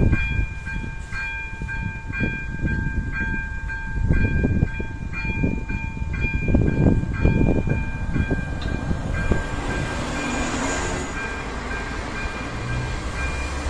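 Level-crossing electronic warning bell (AŽD Elektronický 02) ringing, a pulsed tone about twice a second. From about eight seconds in, a ČD class 814 RegioNova diesel railcar approaches and runs over the crossing. Its rumble and wheel noise swell over the bell, with a brief high squeal near the end.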